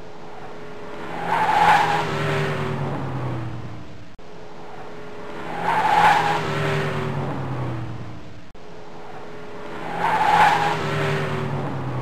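A 2014 Volvo S80 T6 driving past: engine and tyre noise swell to a peak and fade, with the engine note sinking in pitch as it goes by. The same pass-by repeats three times, about every four seconds, with a brief break between repeats.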